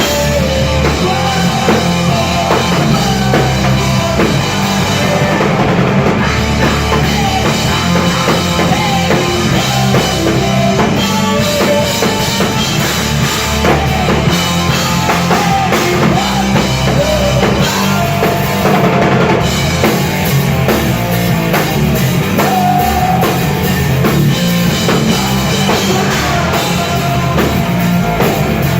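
Live rock band playing loud and steady, with drum kit, bass drum and guitar.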